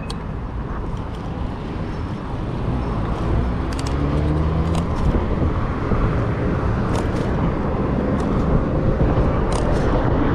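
City street traffic with motor vehicles passing, growing louder, with a low engine tone rising in pitch and a few sharp clicks.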